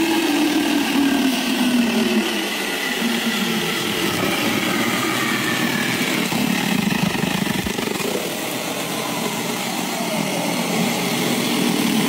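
Hardell cordless mini chainsaw's electric motor running as its chain cuts through old dry wooden boards, its pitch drifting down and back up as it cuts.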